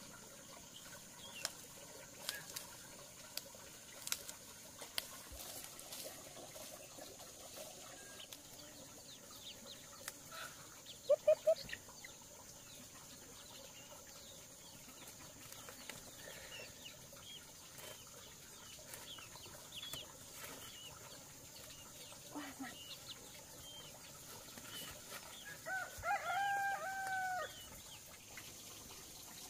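Domestic chickens: a few short, loud clucks partway through and a rooster crowing once near the end. Under them runs a steady high-pitched insect drone, with scattered light clicks.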